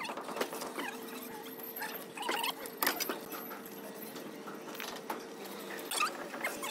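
Small steel trowel scraping and pressing wet fine-sand cement mortar onto a column capital: a run of short scratchy strokes and little squeaks, the strongest about three and six seconds in.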